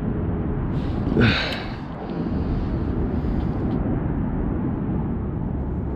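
Strong wind buffeting the microphone: a steady low rumbling noise. A short vocal exclamation about a second in.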